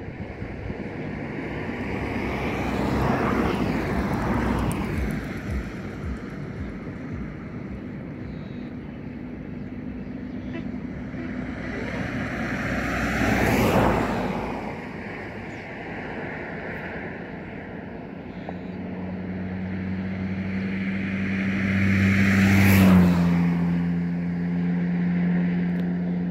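Road vehicles passing one after another, three times, each swelling to a peak and fading away; a steady low hum comes in over the last several seconds.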